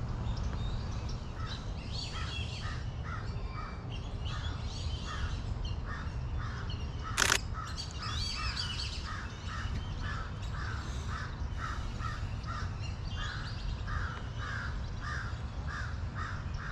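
A bird calling a short, harsh note over and over, about two to three times a second, with fainter, higher chirps of small birds above it. A single sharp click sounds about seven seconds in.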